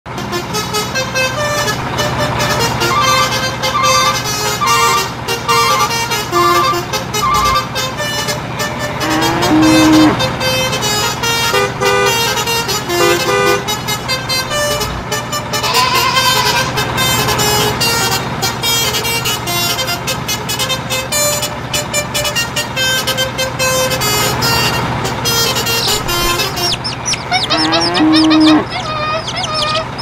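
Upbeat background music with a repeating electronic melody over a steady beat, with a sliding tone about halfway through and again near the end.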